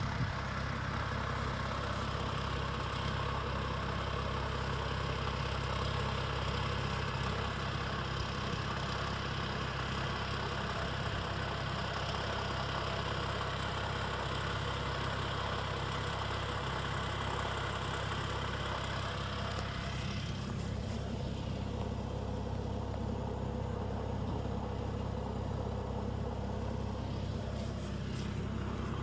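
Kubota M108S tractor's four-cylinder turbo diesel idling steadily. A higher hiss over the engine fades about two-thirds of the way through.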